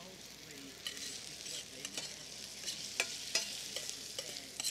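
Diced asparagus frying in oil in a stainless steel pan, a faint steady sizzle, while a metal spoon stirs it and clinks sharply against the pan several times.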